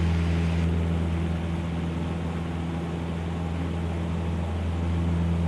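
Four-cylinder Continental O-200 engine of a 1971 Cessna 150L running at full power in the climb just after takeoff, a steady low drone.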